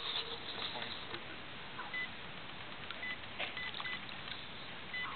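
Short, high electronic beeps, about half a dozen at irregular intervals, over a steady hiss of wind and water, with a few faint clicks.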